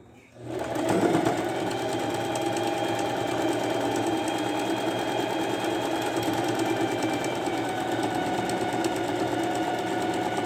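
Electric household sewing machine running steadily at speed, its motor humming under the rapid, even clatter of the needle, as it stitches the finishing seam on a cloth face mask. It starts about half a second in.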